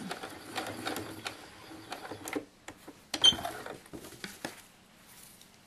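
Electric sewing machine stitching a short seam, a quick run of needle clicks over the motor hum that stops after about two and a half seconds. A sharp click a little after three seconds, then a few light handling clicks.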